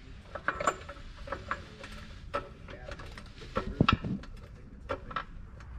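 Pittsburgh Automotive hydraulic floor jack being pumped up under a car's rear differential: a run of irregular mechanical clicks and clunks, the loudest a little before four seconds in.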